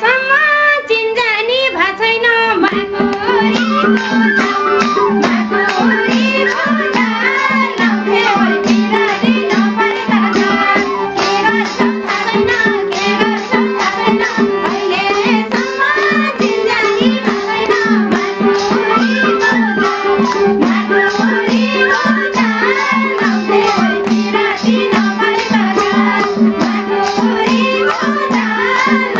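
Live Nepali lok dohori folk music: a fast, even beat of hand-clapping and percussion over a steady held drone, with a wavering melody line on top.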